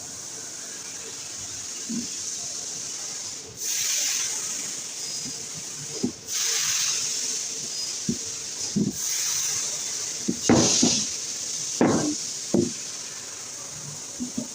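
Welding on a brass door handle: a steady hiss, with louder spells of hissing starting about three and a half, six and nine seconds in, and a few short knocks and clanks near the end.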